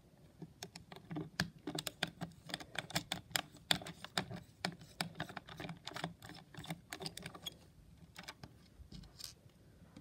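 Small screwdriver turning the screws in the clear plastic shell of a Hexbug BattleBots Witch Doctor toy robot: a fast, irregular run of small clicks and ticks, thinning out after about seven and a half seconds.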